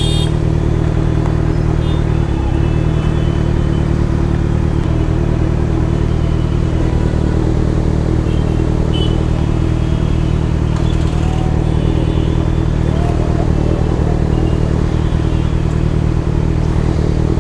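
Motorcycle engine running at a steady, unchanging pitch, heard through a helmet-mounted microphone.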